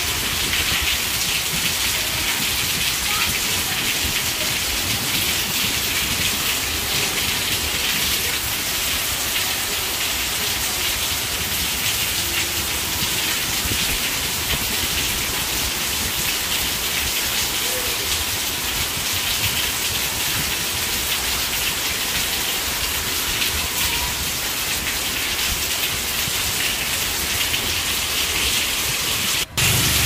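Steady rain falling, an even hiss with no pauses, briefly cutting out for a moment near the end.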